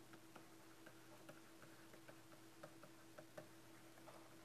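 Near silence with faint, irregular ticks of a stylus tapping on a tablet screen as a word is handwritten, over a faint steady hum.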